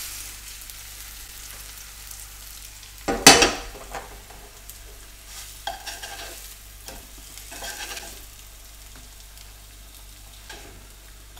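Tofu slices sizzling in hot oil in a nonstick frying pan, a steady hiss throughout. A loud clank comes about three seconds in, and later a few scrapes and taps as a plastic spatula lifts the slices from the pan.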